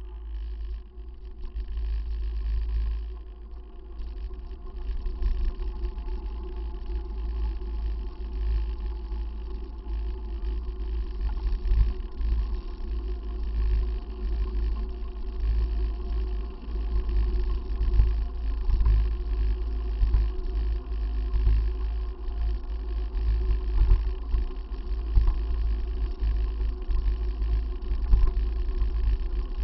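Wind buffeting the microphone of a camera riding on a moving bicycle, a heavy gusting rumble, with road noise from the tyres under it.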